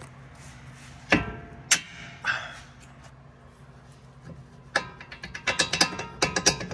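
Metal-on-metal knocks and clanks with a ringing tone, from steel tools and suspension parts. Three separate strikes come in the first half, then a quick, uneven run of clattering clanks near the end.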